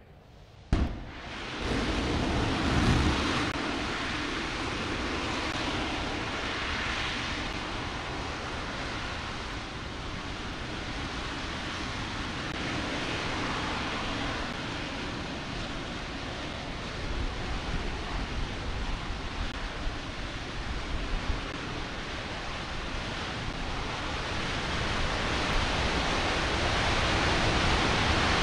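RS-25 liquid-hydrogen/liquid-oxygen rocket engine hot-firing on a test stand: a sharp bang at ignition about a second in, then a steady, deep rushing noise that grows louder over the last few seconds.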